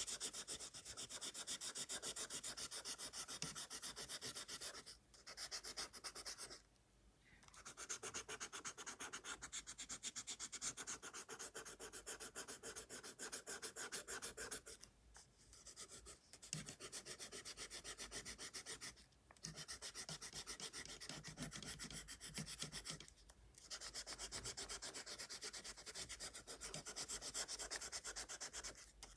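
Coloured pencil shading on sketchbook paper: fast, even back-and-forth strokes in runs of a few seconds, broken by short pauses.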